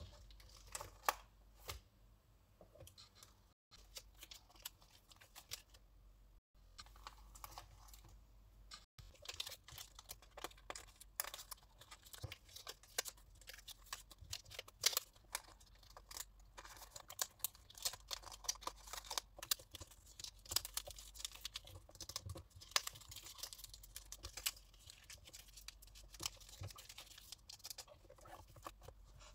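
Faint rustling and crinkling of clear plastic binder sleeves and card wrappers, with scattered light clicks and taps as photocards are handled and slid into the pockets. It grows busier about a third of the way in.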